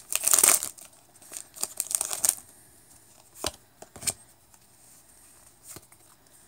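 Foil Pokémon card booster pack being torn open, crinkling and tearing for about two seconds, then a few light taps as the cards are pulled out and handled.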